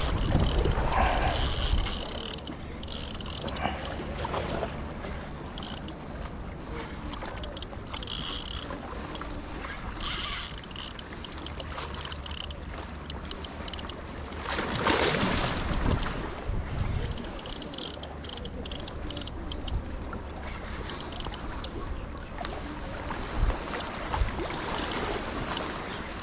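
Spinning reel clicking and ratcheting in irregular bursts under the load of a hooked crevalle jack being fought on the line.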